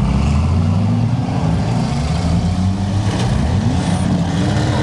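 Several demolition-derby cars' six-cylinder engines running and revving together, their pitch rising and falling.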